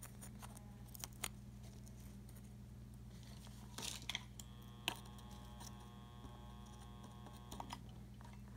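Faint clicks and small rustles of fingers twisting thin stranded wire leads onto the terminals of a small metal slide switch, over a steady low hum. A faint steady high tone sounds from about four to seven and a half seconds in.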